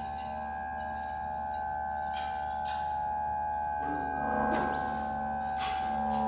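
Avant-garde electronic noise music: a drone of steady held tones over a low hum. Short hissy noise swells come twice, and about two-thirds of the way through a high tone sweeps quickly upward and then levels off.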